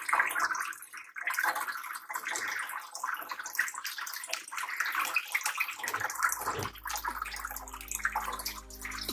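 Water falling from a small tiered garden fountain and splashing into its basin in a steady, crackly trickle.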